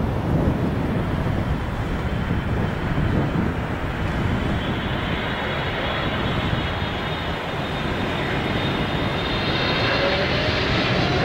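Boeing 777 freighter's twin GE90 jet engines rumbling steadily as the airliner touches down and rolls out on the runway. About nine seconds in, a whine starts rising in pitch and the noise grows slightly as the engines spool up.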